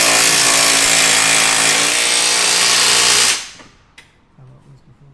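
A power tool runs loud and steady in one burst of about three and a half seconds, then stops and spins down.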